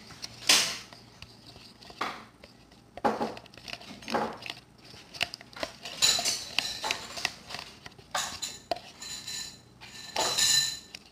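A spoon scraping and clacking against the inside of a red plastic party cup while slime is stirred in it, in irregular strokes with short pauses between.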